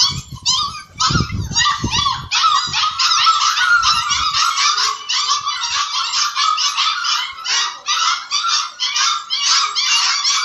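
A litter of puppies yelping and squealing together: a continuous chorus of many overlapping high-pitched cries. A few low thuds sound in the first couple of seconds.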